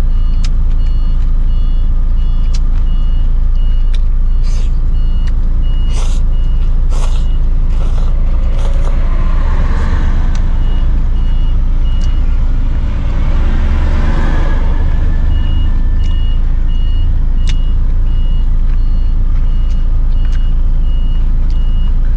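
Steady low rumble of engines and road traffic, with a vehicle's high, evenly repeating warning beep that stops twice and starts again. A vehicle passes about halfway through, and a few sharp clicks come near the start.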